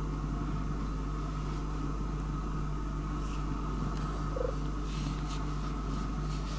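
Domestic cat purring steadily, recorded close up, over a steady low hum.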